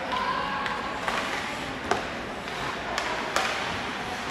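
Ice hockey play in a rink: several sharp clacks of sticks and puck over a steady hiss of skates and arena noise, the clearest about two seconds in and two close together after about three seconds.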